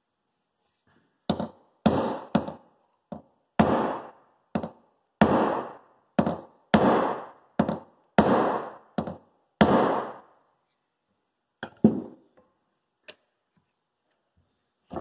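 About a dozen hard hammer blows on a punch, driving a stuck cross pin out of a tractor hydraulic pump's cast body. The blows are spaced irregularly, half a second to a second apart, and each rings briefly. They stop about ten seconds in, and a few lighter taps follow.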